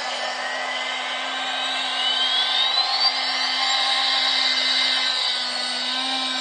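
Battery-powered toy whirring steadily, a small electric motor with a steady hum. A high whine rises smoothly over the first few seconds and begins to fall again near the end.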